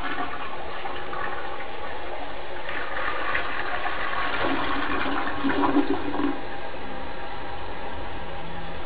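Toilet flushing: water rushing and swirling down the bowl, steady throughout.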